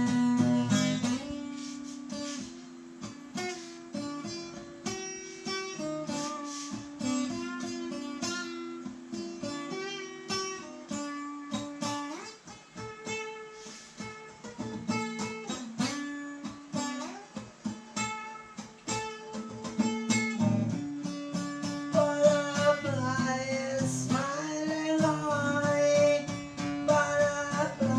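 Acoustic guitar playing a song.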